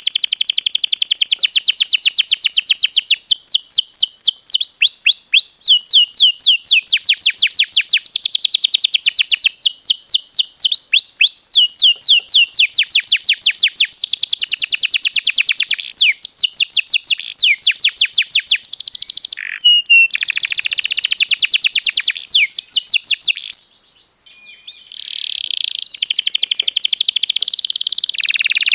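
Domestic canary singing a long trilled song: fast runs of repeated sweeping notes, the phrase changing every second or two, with a brief pause near the end.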